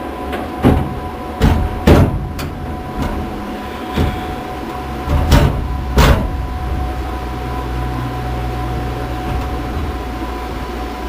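Sheet metal clunking and knocking as a fabricated panel is set in place in the door opening of a 1967 Chevy Nova body. There are about six sharp hits in the first six seconds, then only a steady background hum.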